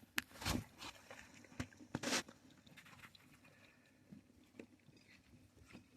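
An animal chewing and crunching food: a few louder crunches in the first two seconds, then fainter, sparser ones.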